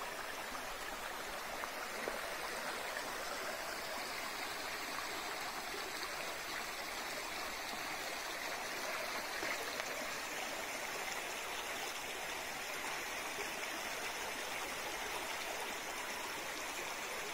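Shallow stream running over stones: a steady, even rush of water.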